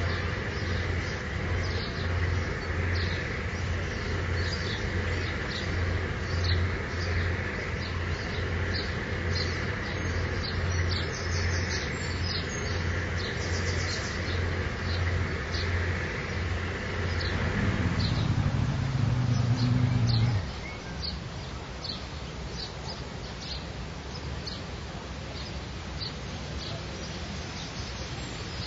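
A motorboat engine runs with a low, pulsing hum under birds chirping. Near the end of the boat ride the engine grows louder with a falling note, then cuts off abruptly about two-thirds of the way through, leaving birdsong over a steady hiss.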